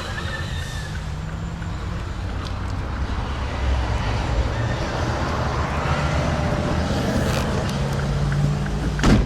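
2006 Mazda 6 engine idling steadily, heard from inside the cabin as a low hum, with a sharp knock near the end.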